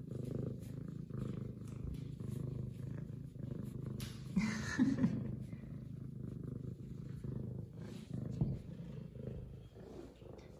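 F2 Savannah cat purring steadily, close to the microphone, with a brief louder sound about four seconds in.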